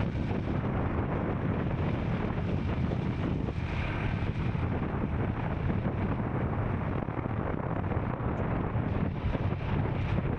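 Royal Enfield Scram 440's single-cylinder engine running steadily while the motorcycle is ridden, with wind buffeting the microphone.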